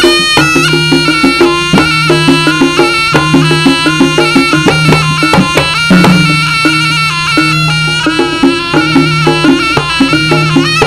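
Live East Javanese jaranan music: a nasal reed shawm (slompret) plays a wavering melody over a low held note, with drums and struck percussion keeping a busy beat.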